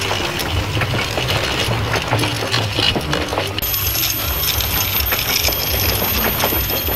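Toy steam locomotive and freight wagons running along model track: a low motor hum under rapid, irregular clicking of wheels over the rail joints.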